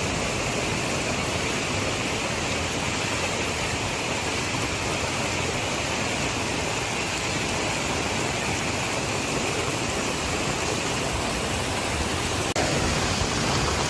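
Heavy rain pouring down onto a flooded street: a steady, even hiss.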